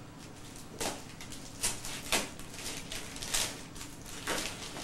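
Gift wrapping paper and packaging rustling and crinkling as presents are handled, in several short swishes about a second apart.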